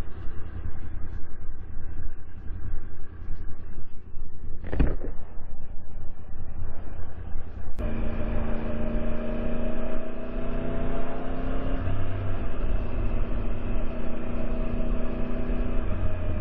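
Sport motorcycle engine running at road speed under heavy wind rumble on the rider's microphone, with a short thud just before five seconds in. About eight seconds in the sound cuts and the engine comes through as a steady hum, its pitch easing slightly lower near the end.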